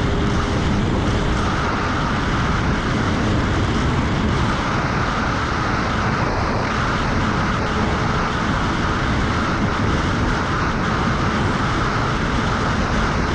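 Yamaha WaveRunner jet ski running steadily at full throttle, engine and water rush together, topping out around 76 km/h. The owner takes this low top speed for a clogged high-speed circuit in the carburetor.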